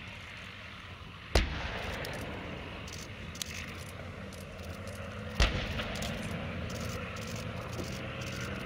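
Two heavy-weapon blasts about four seconds apart, each sharp and followed by a rolling rumble, over the steady drone of armored vehicle engines.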